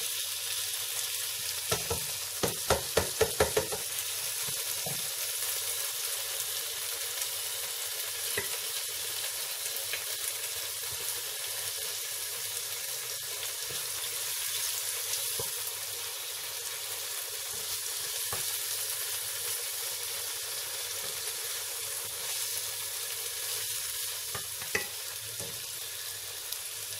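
Minced meat with freshly added tomato sizzling in a nonstick pot while a wooden spatula stirs and scrapes through it. About two seconds in there is a quick run of sharp knocks.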